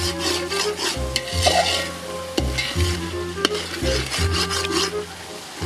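A metal ladle scraping and stirring thick tomato masala in a metal pot over a wood fire, the masala sizzling. Background music with a steady, repeating bass line plays underneath.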